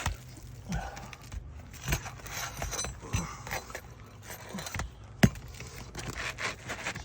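Metal hand tool scraping and clinking against roofing nails and asphalt shingles as nails are worked loose and pulled, with light scattered clicks and one sharper click about five seconds in.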